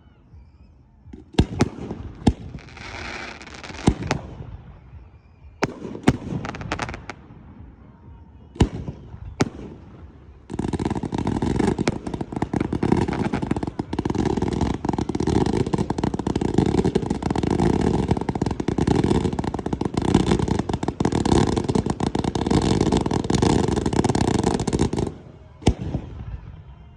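Fireworks display: scattered sharp bangs with crackle for the first several seconds, then about ten seconds in a dense, continuous barrage of rapid-fire bursts that cuts off suddenly near the end.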